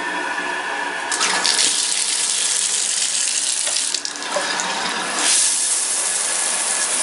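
Bathtub shower running: water spraying from the shower head onto the tub in a steady rush that gets louder about a second in, with decent water pressure.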